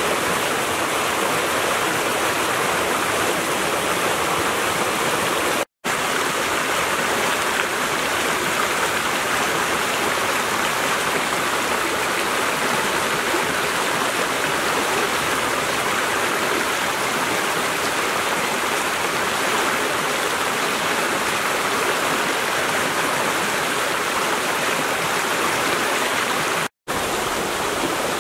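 Shallow rocky creek rushing steadily over small cascades and boulders. The rush cuts out for a split second twice, about six seconds in and near the end.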